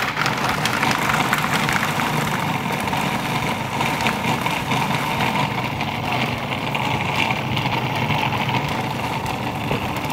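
Electric food processor running at full speed, switched on suddenly at the start, its blade grinding whole pecans, almond meal, egg and margarine into a thick nut-based tart-base paste.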